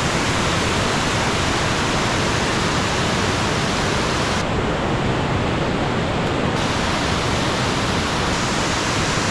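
Waterfall rushing into a pool: a steady, even roar of falling water.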